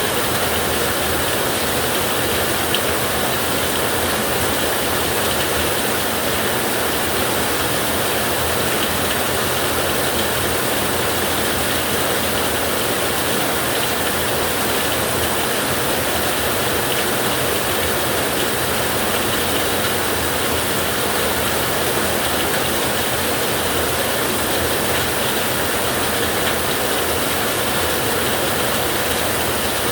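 Ocean surf noise as a dense, steady wash that holds a constant level, with no single wave or thunderclap standing out.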